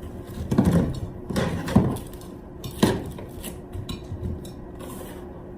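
Dishes and cutlery clinking and knocking, a handful of separate light knocks with the sharpest near the middle.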